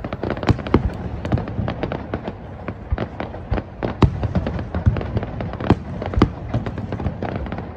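Aerial fireworks at the finale bursting in a dense, irregular barrage of sharp bangs, several a second, with a few louder booms among them.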